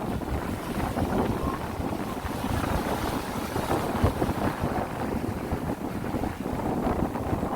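Wind buffeting the microphone with a low, fluttering rumble, over the wash of sea waves.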